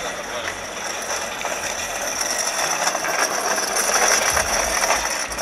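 Casters of a wheeled medical equipment stand rattling as it is rolled over rough ground: a fast, dense clatter with a thin high whine, growing louder about four seconds in.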